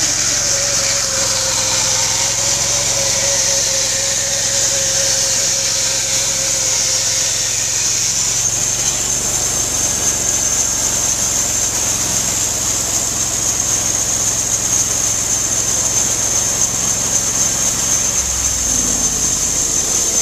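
Bandsaw mill running steadily, its band blade sawing a shingle off a wooden block held in a clamped jig, with a high whine over the machine noise.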